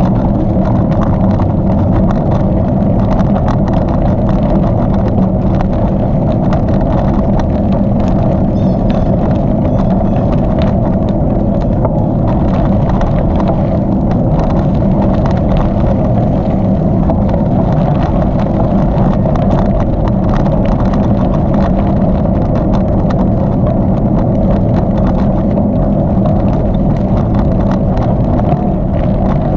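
Steady loud rumble of a bicycle ride heard from a bike-mounted camera: wind on the microphone and tyres rolling over hardpack gravel, with faint scattered ticks.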